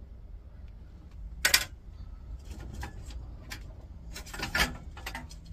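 Computer parts being handled by hand: a sharp knock about one and a half seconds in, then scattered clicks and rattles of plastic and metal. A louder clatter follows near the end as the cooling fans and their wires are pulled from the metal tower case.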